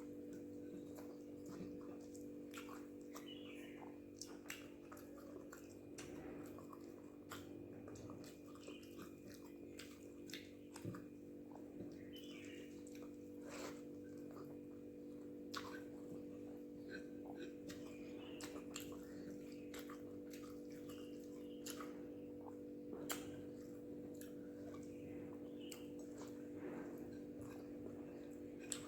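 A person chewing mouthfuls of rice and egg gravy, with many small wet smacks and clicks, over a steady low hum.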